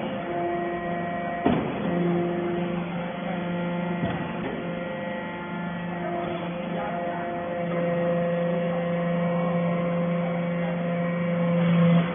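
Hydraulic metal chips baling press running: a steady hum from its electric motor and hydraulic pump, swelling and easing as the press works, with a sharp knock about a second and a half in.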